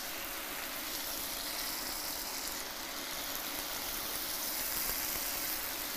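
Chicken thighs frying in a cast-iron skillet on a hot plate: a steady, even sizzle.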